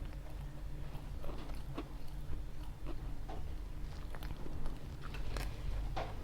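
Close-miked chewing of pizza: irregular wet mouth clicks and smacks as it is bitten and chewed.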